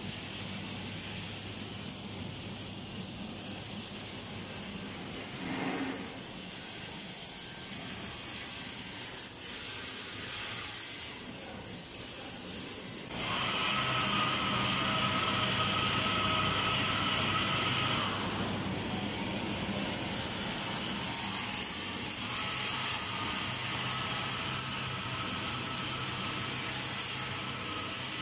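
EKO 198 conveyor nut-roasting line running: a steady hiss over a low motor hum. About halfway through it gets louder, with a steady high tone added.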